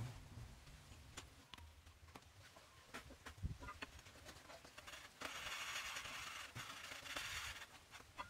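A flat stone block rubbed across a steel plate coated with red marking paint, with scattered light clicks and knocks and a steady gritty hiss for about two seconds past the middle. The rubbing marks the plate's high spots for scraping it flat.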